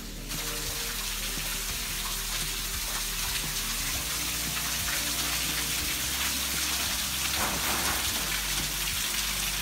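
Meltwater running and dripping inside a glacier ice cave: a steady hiss.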